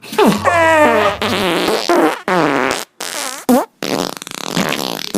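Cartoon fart sound effects played as several quick variations in a row, each a pitched, wavering blast with a short gap before the next. The last is a longer one with a rapid flutter.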